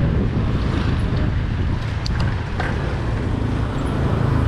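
Steady low rumble from a road bike riding up a rough, patched lane: tyre and wind noise on the rider-mounted camera, with motorbikes coming past.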